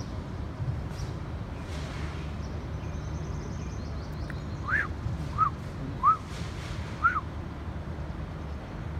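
A bird gives four short whistled notes, each rising and falling, spaced about half a second to a second apart in the second half, over a steady low hum.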